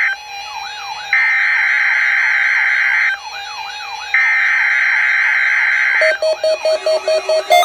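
NOAA Weather Radio SAME digital header, the coded data that opens a Required Weekly Test: harsh buzzy data bursts, two of them about two seconds long, a second apart, with a fast warbling electronic tone in the gaps. About six seconds in, quick repeating beeps begin.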